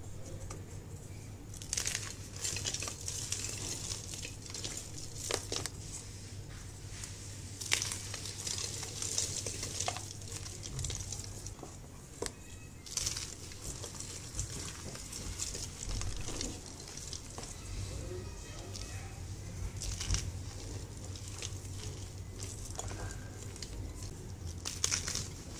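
Hands crushing reformed gym chalk shapes: dry chalk crunching and crumbling into powder in irregular bursts, with louder crunches every few seconds. A steady low hum runs underneath.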